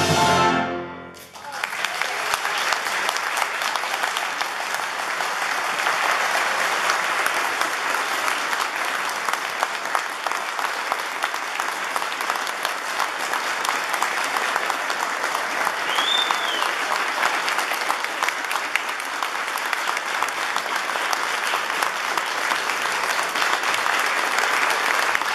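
The final chord of piano and orchestra breaks off within the first second. Then an audience applauds steadily, with a brief rising-and-falling whistle partway through.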